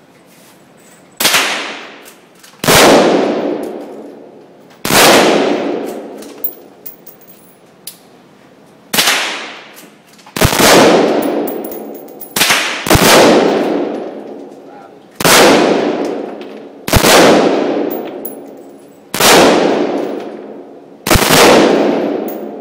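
Colt M4 carbine (.223) firing about ten loud shots, spaced a second or more apart, each report ringing out in a long echo in an indoor range.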